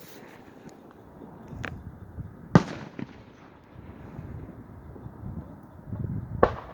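Fireworks going off: two sharp bangs about four seconds apart, with a fainter pop shortly before the first, over steady background noise.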